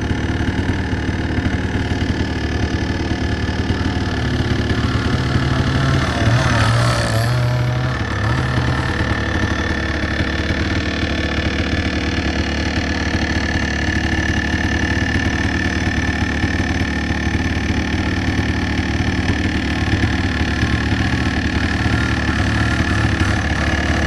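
Small motorcycle engine running steadily at a low, idle-like speed, swelling briefly about six to seven seconds in.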